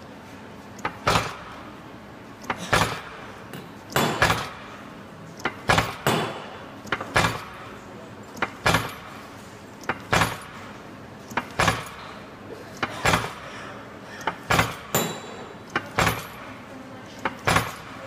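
Stamping press punching lobster-clasp blanks from a hand-fed metal strip in a guide-pillar die set: a sharp metallic clack, often doubled, about every one and a half seconds, some twelve strokes in all.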